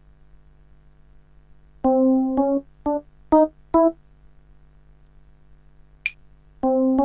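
Kurzweil KA90 digital piano playing five short notes that step upward, starting about two seconds in, over a steady electrical hum. A small click follows near the end.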